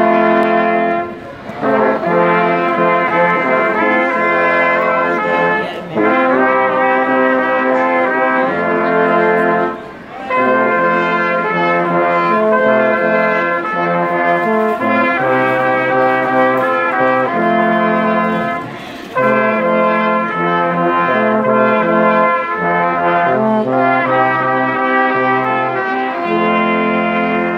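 A small brass ensemble of trumpets and trombones playing a tune in held chords, pausing briefly between phrases.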